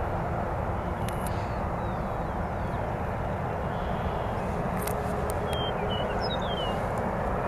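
A steady low rumbling roar with no pauses, with a few faint bird chirps about five to six and a half seconds in.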